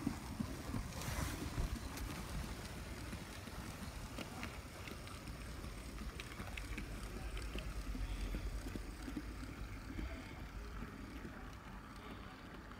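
HO-scale brass 0-4-0 tank locomotive model and its train running along the track: a steady low rumble of the motor and wheels on the rails with a few light clicks, growing louder as the train passes and fading near the end.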